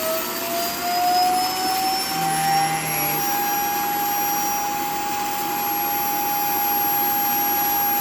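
Roomba Clean Base self-emptying dock running its evacuation fan, pulling debris out of the docked Roomba s9's bin. Its whine climbs in pitch over the first couple of seconds, holds steady, and starts to wind down at the very end.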